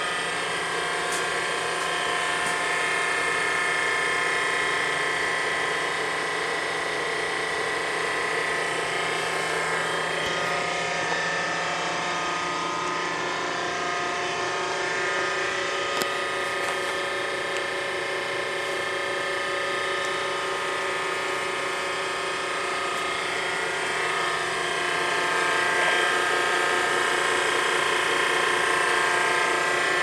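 Enerpac electric hydraulic power unit of a Parker 83C-001 hose crimper running steadily, a mechanical drone with several constant tones. There is a single sharp click about halfway through, and the sound grows slightly louder, with a shift in tone, a few seconds before the end.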